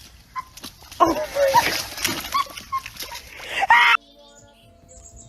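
A dog's short, high vocal sounds among clicks and knocks, cut off abruptly about four seconds in. A quieter stretch with a faint steady hum follows.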